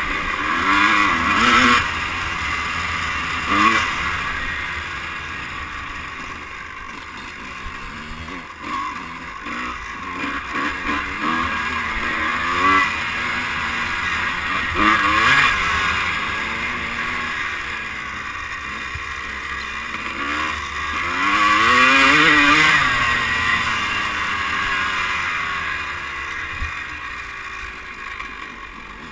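Two-stroke dirt bike engine heard from on the bike, revving up and down repeatedly as it is ridden along a dirt trail, with louder bursts of throttle. It eases off near the end as the bike slows.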